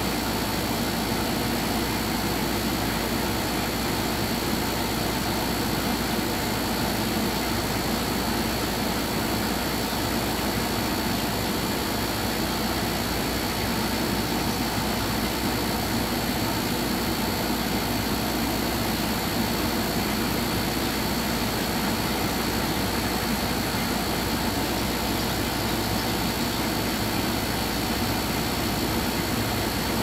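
Steady, unchanging mechanical drone with hiss, like a running engine or machine.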